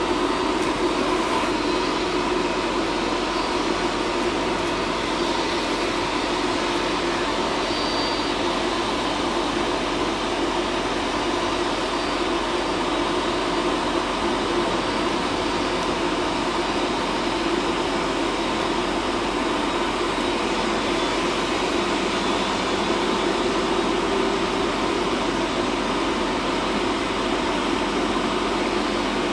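Boeing 777's twin turbofan engines whining steadily at taxi idle, blended with the steady rush of road traffic passing close by.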